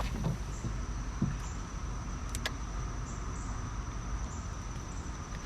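Steady high-pitched insect chirring with a low rumble beneath it and a couple of small clicks.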